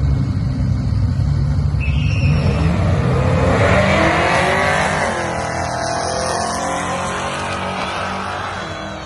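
Turbocharged V6 Commodore engine accelerating: its pitch climbs from about three seconds in, then it eases off and the sound fades gradually toward the end.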